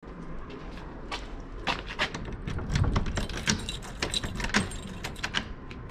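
A bunch of keys jangling, with many irregular metallic clicks at a wooden garage door.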